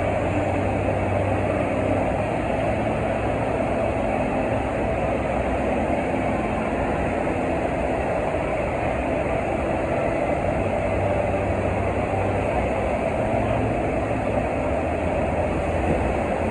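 Steady rushing of water from a FlowRider sheet-wave machine, a thin sheet pumped up the padded slope, with a low hum underneath.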